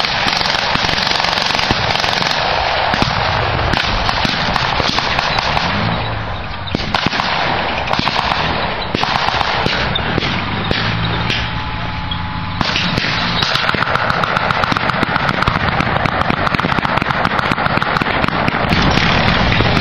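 Near-continuous blank gunfire from a battle reenactment: rapid machine-gun bursts and scattered rifle shots, with vehicle engines running beneath.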